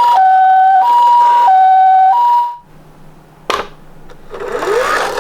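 Toy ambulance's electronic two-tone siren, alternating a high and a low tone about every two thirds of a second, cutting off about two and a half seconds in. A sharp click follows about a second later.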